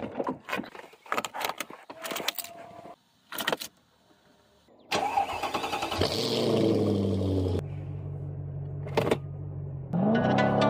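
Clicks and knocks of a car door handle and door opening. About five seconds in, a 2002 Mercedes-Benz CL500's 5.0-litre M113 V8 starts with a brief flare and settles into a steady idle.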